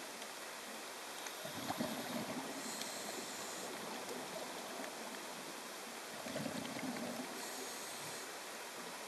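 Scuba diver's regulator breathing heard underwater: two breaths about five seconds apart, each a low rush of bubbles followed by a hiss, over a steady background hiss.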